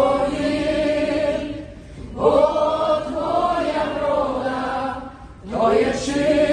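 A crowd of men and women singing a Ukrainian song together with a male lead singer, in three sung lines with short pauses between them.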